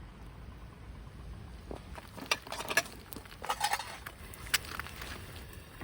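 Camp cookware and utensils being handled: a run of light clinks and knocks between about two and five seconds in.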